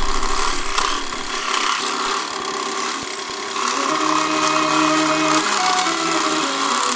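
A tool cutting or rasping into wood: a continuous scraping noise.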